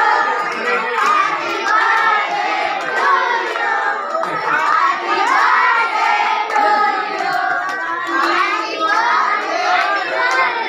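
A crowd of people clapping while voices, children's among them, sing and call out together.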